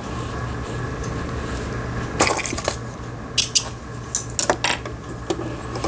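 Short metallic clicks and clinks, several between about two and five seconds in, as the metal needle plate of a Toyota home sewing machine is unclipped and lifted off, over a steady low hum.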